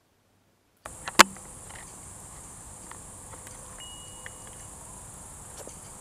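Crickets chirping steadily in the dark, a continuous high-pitched trill over a low hiss. A single sharp click sounds about a second in, just as the sound begins.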